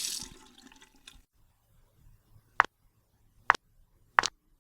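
Running tap water cuts off within the first half second. Three sharp single clicks follow, roughly a second apart, after a fainter one.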